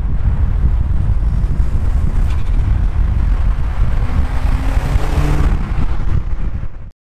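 Car driving, its engine note mostly buried under heavy wind buffeting on the microphone, with a faint rising engine pitch about four seconds in.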